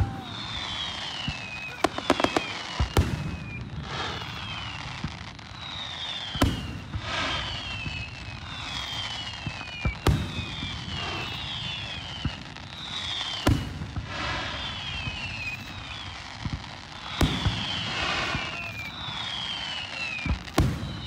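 Fireworks display: aerial shells bursting with sharp booms every three or four seconds. Between the booms come repeated high, falling whistles.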